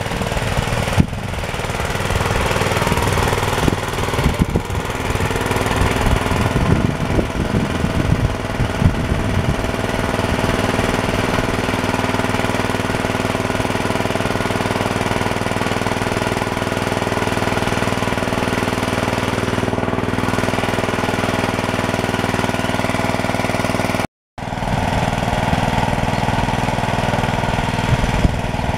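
The small engine of a homemade minitractor running steadily. The sound cuts out for a moment near the end, then carries on.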